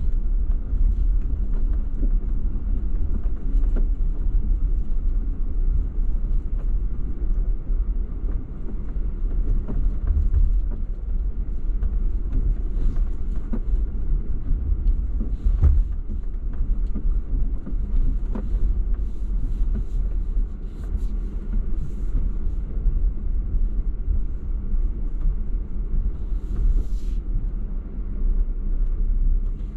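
Jeep driving slowly over an off-road trail: a steady low rumble of engine and drivetrain, with scattered knocks and rattles over the terrain, the sharpest about halfway through.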